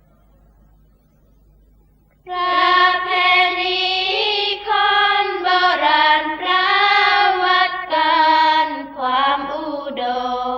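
Sorapanya, Thai Buddhist chant-singing in an Isan melody: after about two seconds of near quiet, a high voice sings long, drawn-out notes that bend slowly and step down in pitch near the end.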